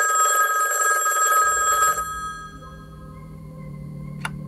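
Old rotary telephone bell ringing with a rattling ring for about two seconds, then fading away. A low steady hum comes in underneath, and a single sharp click near the end as the handset is picked up.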